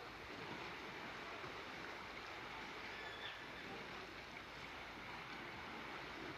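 Faint, steady rushing noise with no distinct tones or rhythm.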